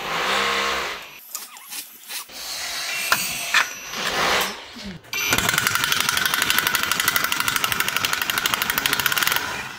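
PUMA PM-233BL 20 V cordless impact wrench on a rusted bolt: a few metal knocks and clinks as the socket is seated, then about five seconds in it hammers in rapid, steady impacts for some four seconds, cutting off suddenly.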